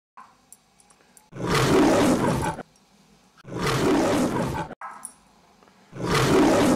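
Three loud animal roars, each a little over a second long, with short pauses between them, as in a studio-logo roar sound effect.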